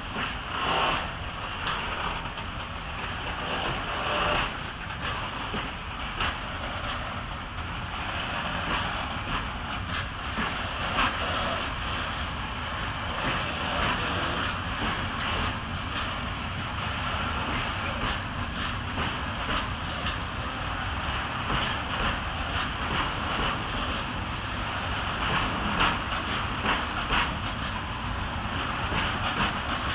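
Loaded coal train of open freight wagons rolling slowly out. A steady rumble of wheels on rail comes with many short clicks and clanks.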